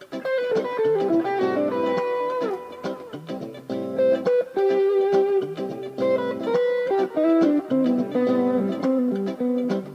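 Late-1970s made-in-Japan Fernandes FST-70 Stratocaster-style electric guitar played unaccompanied, mixing chords and single-note lines, with a note sliding down about two and a half seconds in.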